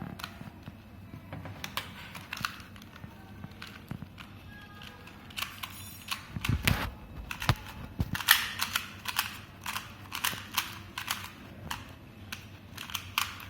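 Plastic 2x2 Rubik's cube being turned by hand: an irregular run of quick clicking, clacking turns, sparse at first and coming thick and fast in the second half, with a dull knock about six and a half seconds in.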